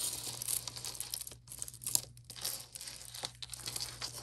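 Packaging crinkling and rustling as it is handled, with scattered small clicks.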